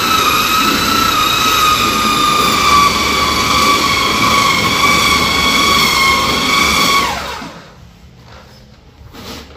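Electric motor running with a steady high whine, switched off about seven seconds in, its pitch falling as it winds down. A short click follows near the end.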